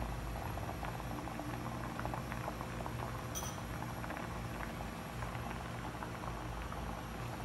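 Milky mixture bubbling in a nonstick wok on the heat: a steady stream of small irregular pops over a low hum.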